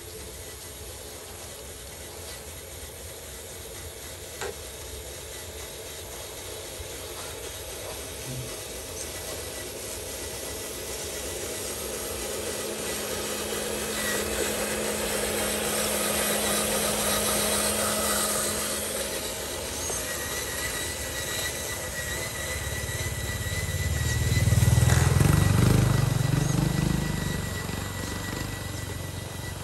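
Radio-controlled model dump truck loaded with soil driving on a wet dirt road, its electric motor and gears whining. The sound grows louder as the truck nears. A low rumble swells and fades about 25 seconds in.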